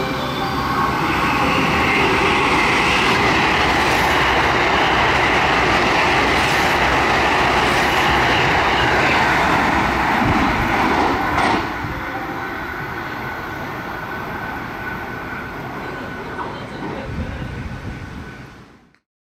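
Thunderbird limited express electric train passing through a station at high speed: a loud, steady rush of wheels and air that drops off suddenly about eleven seconds in, then fades away.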